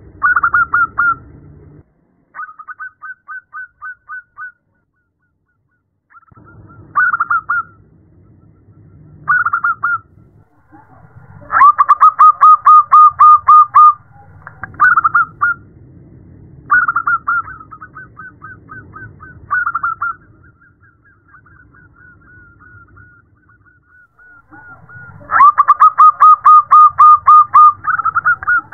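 Zebra dove (perkutut) cooing in repeated phrases of quick staccato notes. Two long, loud runs of rapid notes come at about twelve seconds and again near the end, and there is a short pause in the first few seconds. The call is presented as a female calling to a male.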